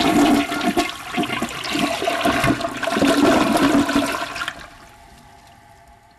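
Toilet flushing: water rushes loudly, then drops away about four and a half seconds in to a quiet, fading trickle. The flush is worked through a makeshift paper-clip chain linking the handle to the flapper in place of a broken chain.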